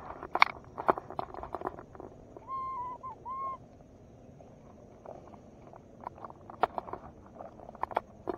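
Footsteps crunching and rustling through grass and brush on a swamp bank, with sharp clicks throughout. About two and a half seconds in comes a two-note hooting call, each note short and steady.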